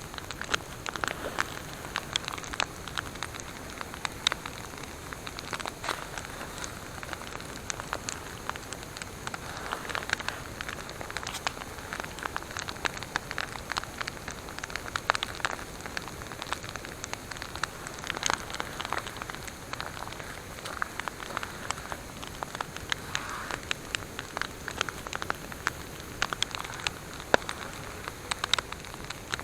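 Wood campfire crackling, with many sharp, irregular pops and snaps over a steady hiss.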